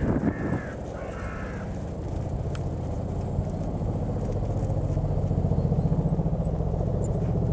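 A bird calls twice with harsh, cawing calls in the first second and a half. Then a low, steady engine rumble swells up, loudest about six seconds in.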